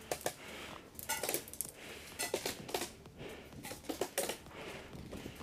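Light clicks and knocks in small irregular clusters from an airsoft player's gear and rifle being handled as he moves, over soft rustling.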